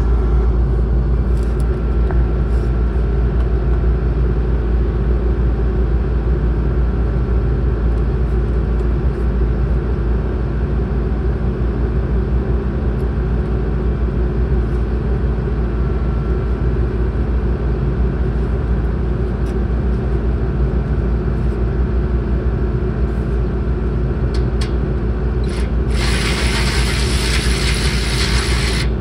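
Skid steer engine running steadily at a constant speed. About three seconds before the end, a handheld power tool runs briefly over the engine, tightening a solar panel clamp bolt.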